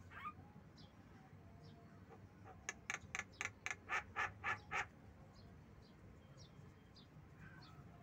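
Javan myna giving a rapid run of about nine calls, about four a second, from about three to five seconds in, with a few faint short chirps before and after.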